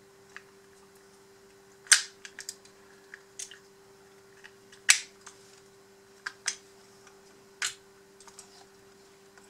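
Metal parts of a full-metal RC excavator arm clicking and knocking as they are handled and fitted together by hand: about eight sharp clicks, the loudest about two and five seconds in. A steady faint hum runs underneath.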